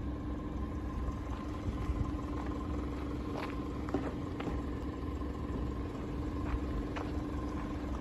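Toyota Hiace's 1TR four-cylinder petrol engine idling steadily, with a few short clicks over it.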